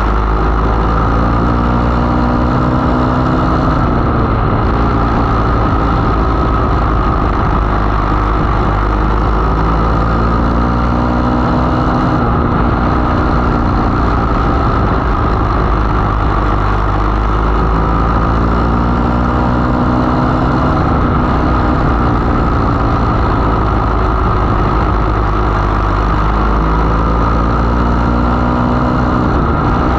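500 mini sprint's 500 cc engine at racing speed, heard onboard. Its pitch rises and falls in a repeating cycle about every eight to nine seconds, lap after lap around a short oval.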